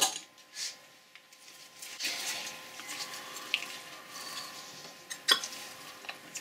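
Handling noises as gloved hands fit a steel end plate onto a lathe apron's gear train: soft scraping and rustling with small metal clicks, a sharp click at the start and another about five seconds in.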